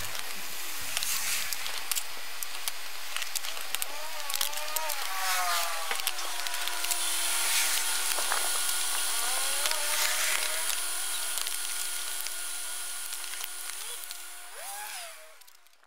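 Freestyle scooter wheels rolling and scraping on a concrete sidewalk, with scattered clicks and a faint steady hum in the middle. The sound fades out at the end.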